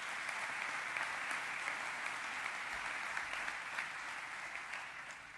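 Audience applauding: a steady wash of many hands clapping that fades away near the end.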